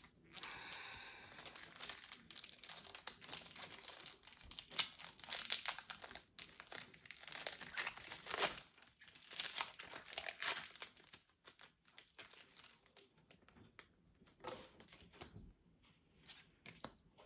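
Foil wrapper of a Pokémon trading-card booster pack being crinkled and torn open by hand. The dense crinkling lasts about eleven seconds, then thins to a few scattered crackles.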